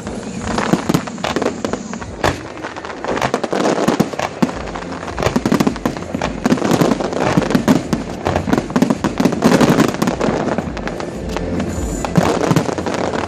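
Fireworks display: a dense, continuous run of aerial shell bursts and crackling, thickest in the middle stretch.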